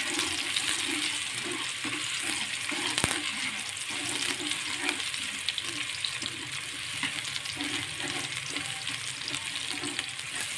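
Sliced shallots and minced garlic sizzling in hot oil in a wok, frying until fragrant, while a spatula stirs and scrapes the pan about twice a second. One sharp tap about three seconds in.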